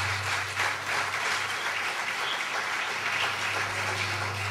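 Audience applauding, a steady even clapping throughout, with a steady low hum underneath.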